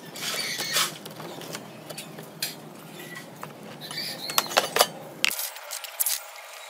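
Close handling noise from a desktop computer power supply's wiring and parts: rustling, then a scatter of sharp clicks and clinks, with a quick cluster of louder clicks near the end.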